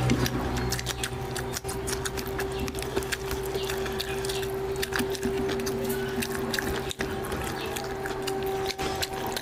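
Close-up eating sounds: many wet clicks and smacks from chewing, with sticky squelching as oily fingers pull meat apart from a curried mutton head. A steady hum runs underneath.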